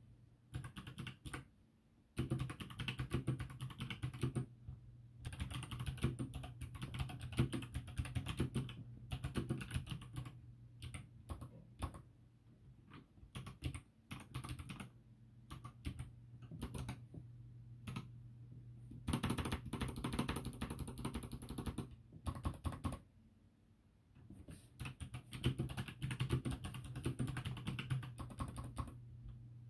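Fast typing on a mechanical keyboard with clicky Novelkeys BOX Jade switches, each keystroke giving a sharp click, in a Redragon K580 with HyperX Pudding keycaps. The typing comes in runs with a few short pauses.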